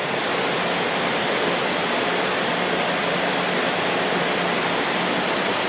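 Steady rushing noise of cooling-fan airflow with a faint low hum underneath.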